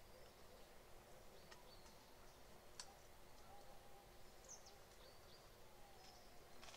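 Near silence: a faint background with a few soft clicks, one sharper about three seconds in, and a few brief high chirps.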